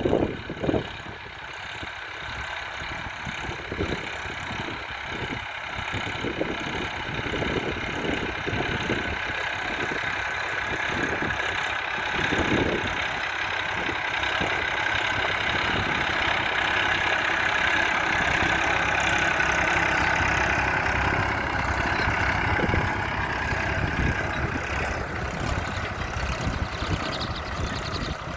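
Massey Ferguson 241 DI tractor's three-cylinder diesel engine running steadily, growing gradually louder toward the middle and easing off a little near the end.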